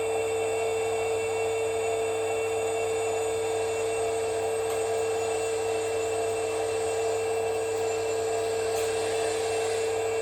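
Radio-controlled model machinery running steadily: a constant hum with a strong, unchanging whine, typical of a model's simulated engine sound and electric motors.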